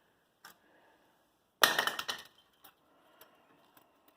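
Metal clinks: one small click, then about a second and a half in a short, loud clattering rattle of rapid sharp clicks, then a few faint ticks, as wire is threaded through a brake caliper to hang it up.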